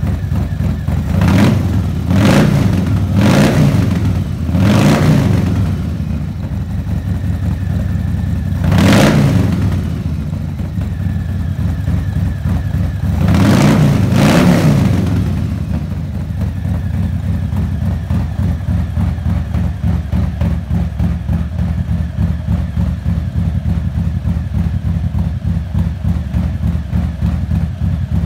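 Harley-Davidson Fat Boy's Milwaukee-Eight 114 V-twin, with an S&S 475 cam and Vance & Hines Eliminator mufflers, blipped through a run of quick revs: four in the first five seconds, one near nine seconds and a longer double rev around fourteen seconds. It then settles into a lumpy, pulsing idle, deeper and louder than stock because of the cam and mufflers.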